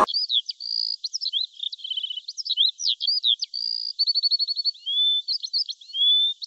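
Forest birds singing: a busy run of high chirps, short whistles, quick rattling trills and a few rising whistled notes, thin and high with nothing low beneath them.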